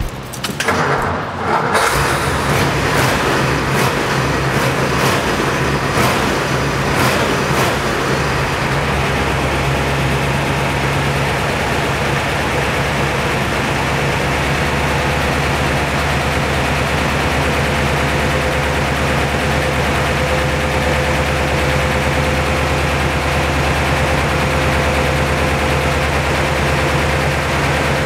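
1955 Ford Thunderbird's 292 Y-block V8 cranked on the starter and catching about two seconds in, then idling steadily.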